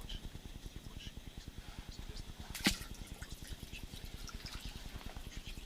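Burbot tapping lure (a metal cone) knocking rapidly and evenly on the river bottom under the ice, about ten knocks a second, with one sharp click a little over halfway through.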